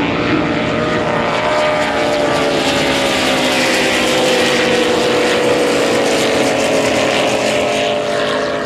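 Several unblown (naturally aspirated) racing powerboat engines at full throttle as the boats run together at speed. It is a loud, steady engine sound over the rush of water, and its pitch slides slowly down as the boats pass.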